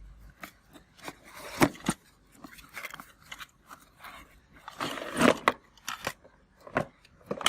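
Toy packaging being opened by hand: cardboard and plastic crinkling and scraping, with scattered sharp clicks and a denser burst of handling about five seconds in.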